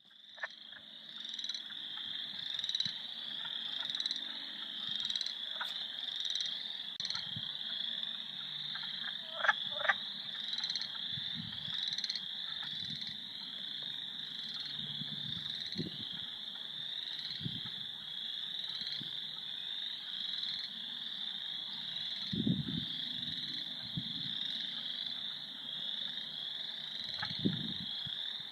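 A dense chorus of frogs calling without pause in high, overlapping calls. Two sharp clicks come about ten seconds in, and a few soft low thuds come later.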